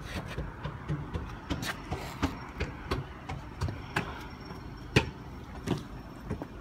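Footsteps going down concrete steps: an uneven run of sharp taps and scuffs, the loudest about five seconds in.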